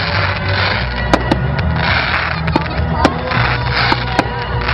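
Fireworks going off: a string of about seven sharp bangs spread over a few seconds, with patches of crackling between them, over music playing underneath.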